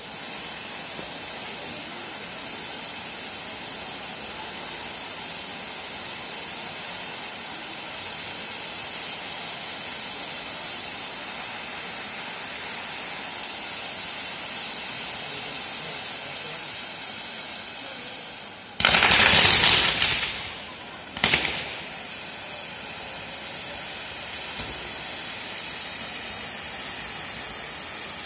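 Ground firework fountains on a pyrotechnic set piece spraying sparks with a steady hiss. About nineteen seconds in, a much louder burst lasting about a second and a half, then a second, shorter loud burst two seconds later.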